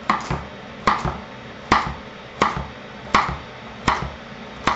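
Chef's knife dicing carrot on a wooden cutting board: about seven sharp knocks of the blade against the board, roughly one every three-quarters of a second.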